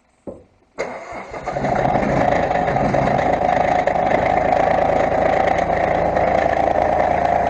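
Tractor engine starting up about a second in, then running steadily and loudly.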